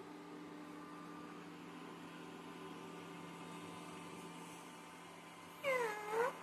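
A domestic cat meows once near the end, a single call of under a second that dips in pitch and rises again. A faint steady hum sits underneath.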